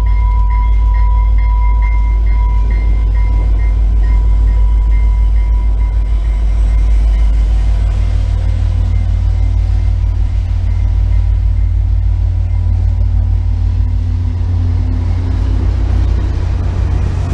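VIA Rail F40PH-2 diesel-electric locomotive passing close by with its engine running, a heavy low rumble, then stainless-steel passenger cars rolling past, the wheels rumbling unevenly on the rails. A bell rings steadily, about twice a second, fading away through the first half.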